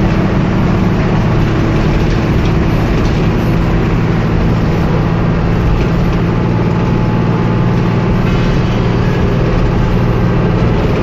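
Hino AK1J bus engine running steadily at road speed, with tyre and road noise, heard from inside the cabin.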